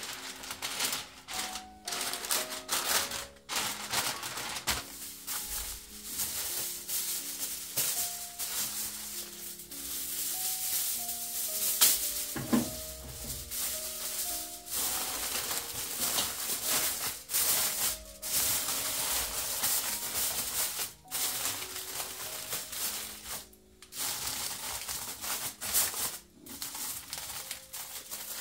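Aluminium foil crinkling and crackling as it is spread and pressed down over a roasting tray, with baking paper rustling under it, in irregular crackles throughout, over quiet background music.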